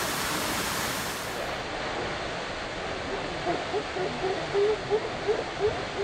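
Steady rush of a waterfall, its hiss turning duller about a second and a half in. About halfway through, a run of short, low-pitched calls starts, repeated about three times a second and louder than the water.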